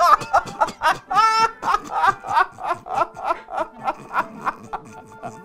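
A man laughing hard and uncontrollably: a long run of rapid 'ha-ha-ha' pulses, about five a second, with a higher-pitched whoop about a second in, growing weaker toward the end.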